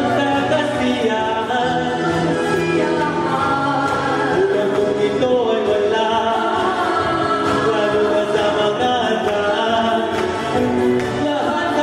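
A vocal group singing in close harmony, several voices holding and moving between chords.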